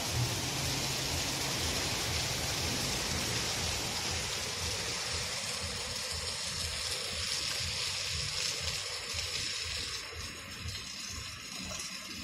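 Heavy rain pouring down and splashing on a wet, puddled paved lane: a steady hiss that eases slightly near the end.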